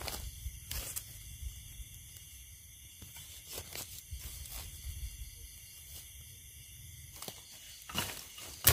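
Scattered rustles and crackles of someone moving through forest leaf litter, over a low rumble, with one sharp knock near the end.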